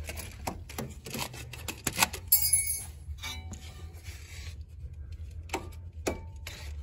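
Irregular clicks, clinks and scrapes of hands, tools and parts being handled in a car's engine bay, with a rustle about two to three seconds in, over a steady low hum.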